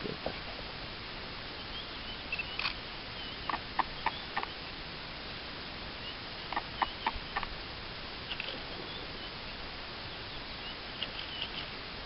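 Outdoor bush ambience: a steady hiss with faint high bird chirps, broken twice by a quick run of three or four sharp clicks.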